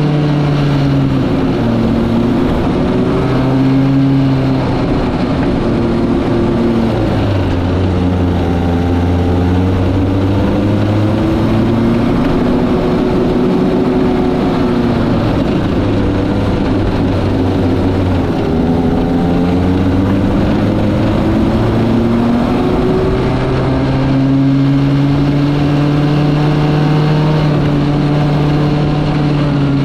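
Kart engine running continuously, its pitch rising and falling with the revs. It runs slower through the middle stretch and picks up again later on.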